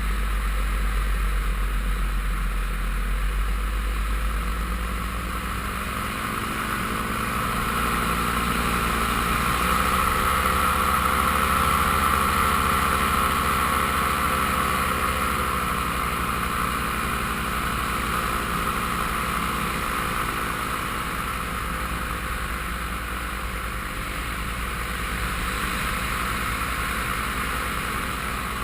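Paramotor engine and propeller running steadily in flight, its pitch rising and easing off again about a third of the way in.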